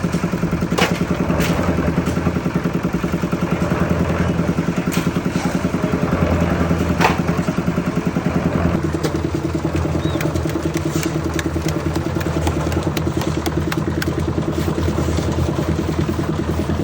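Engine running steadily on site machinery, with a few sharp knocks over it; its tone shifts slightly about nine seconds in.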